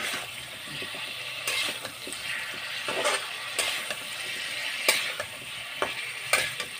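Vegetables (cauliflower, tomato, potato and kohlrabi) frying in a metal kadai with a steady sizzle, while a metal spatula stirs them, scraping and clinking against the pan about once a second.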